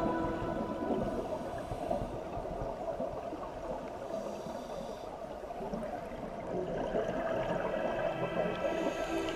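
Soft background music of long held notes. It thins out in the middle and fills out again near the end.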